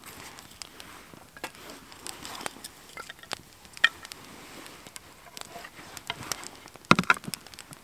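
Small split-wood fire crackling, with scattered sharp pops, as sticks and a larger piece of wood are laid onto it. A louder cluster of knocks comes near the end.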